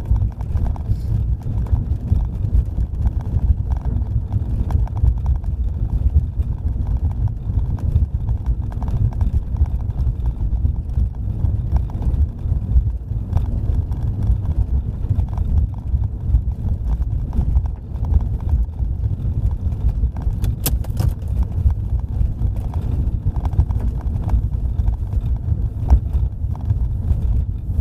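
A car driving, with a steady low rumble of road and engine noise and frequent small irregular knocks from the tyres on a rough road surface.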